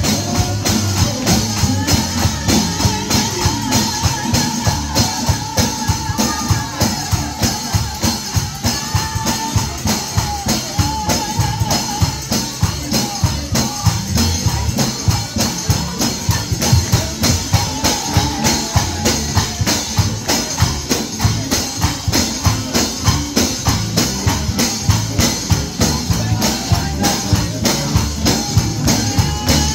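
Live gospel music: a tambourine shaken and struck on a quick steady beat over drums and bass, with a voice wavering above it.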